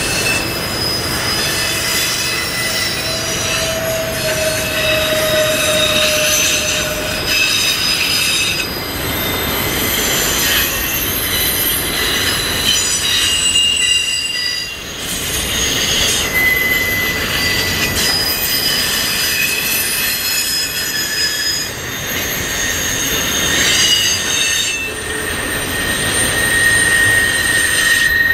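Freight train of autorack cars rolling past, steel wheels squealing in several high, shifting pitches over a steady rumble of the wheels on the rails.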